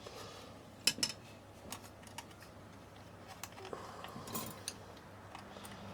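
Small clicks and taps from handling a plastic light casing and screws during reassembly: two sharp clicks close together about a second in, then a few lighter ticks.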